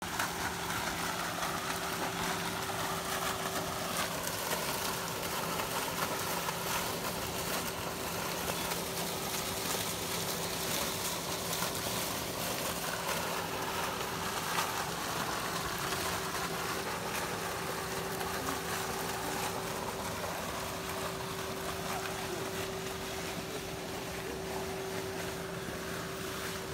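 Garden fountain splashing steadily, over a constant low hum.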